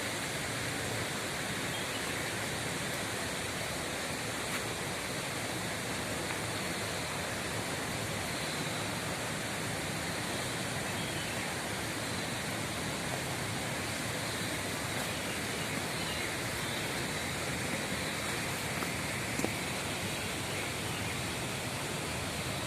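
Flowing water rippling, an even rushing noise with no breaks.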